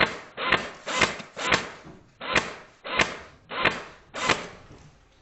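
Footsteps at a steady walking pace, about eight steps, stopping about four and a half seconds in.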